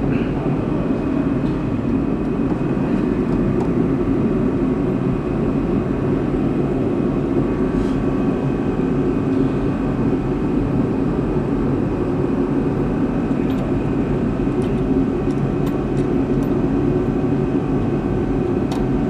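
A steady mechanical drone with a faint whine running through it, with a few light clicks.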